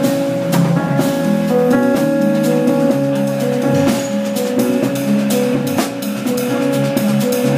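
Jazz trio of electric keyboard, electric bass and drum kit playing live: held keyboard chords over a moving bass line, with steady drum and cymbal strokes throughout.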